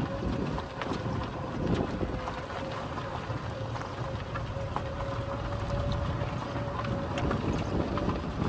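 Open golf buggy driving slowly over a gravel track. A steady motor whine runs under the tyre rumble, and wind buffets the microphone.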